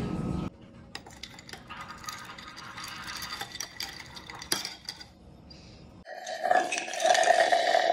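A metal straw stirs ice in a glass mason jar of iced coffee, with scattered clinks of ice and metal against the glass. About six seconds in comes a louder, drawn-out sip through the straw.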